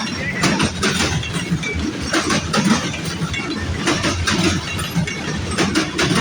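Freight train of grain cars rolling past, a steady rumble with the wheels clicking and clanking irregularly over the rail joints.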